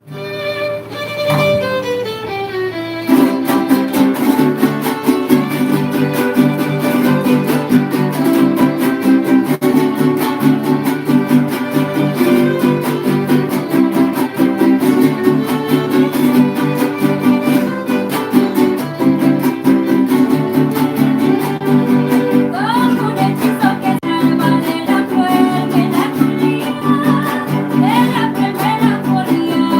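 A son huasteco trio of violin, jarana huasteca and huapanguera playing a huapango. The violin opens alone with a falling slide, and after about three seconds the strummed rhythm of the jarana and huapanguera joins under it. From about two-thirds of the way in, short rising slides ring out above the strumming.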